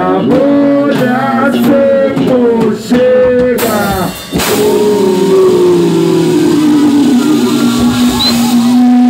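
Loud live band music through a PA, with a rapper's vocal over electric guitar and drums. About four seconds in the vocal stops and a hissy wash with a slowly falling tone takes over, settling near the end into one steady held note.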